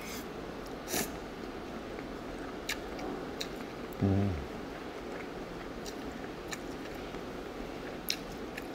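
A person slurping and chewing mouthfuls of chewy spicy mixed noodles, with scattered wet mouth clicks and a smack about a second in. A short low hum about four seconds in drops slightly in pitch.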